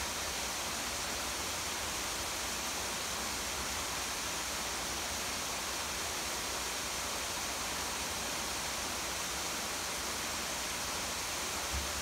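Steady, even rushing of a small garden waterfall, mixed with falling rain.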